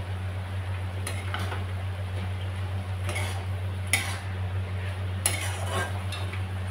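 A spatula stirs and scrapes spinach and potatoes around a metal kadhai in several strokes, with a couple of sharp clinks against the pan, over a steady low hum.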